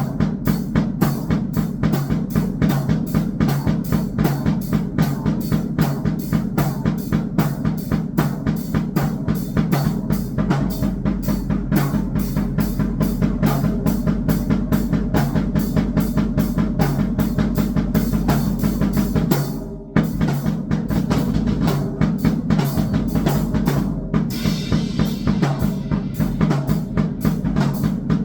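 Electronic, neural-network-style noise that sounds like a drum kit: a fast, steady run of dense drum-like hits with a heavy low body. It drops out for a moment about two-thirds of the way through, and a hiss rides on top for a couple of seconds after it.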